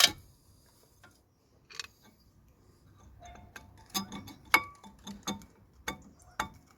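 Brake wear sensor being prised out of a brake pad with a flathead screwdriver: sharp metallic clicks and taps of the steel tip on the pad and sensor clip, a single click early and then about half a dozen in the second half, some ringing briefly.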